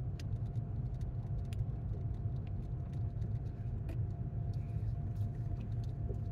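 Steady low rumble of a moving vehicle heard from inside the cab, tyres and engine on a paved road, with a faint steady whine and light scattered ticks of interior rattles.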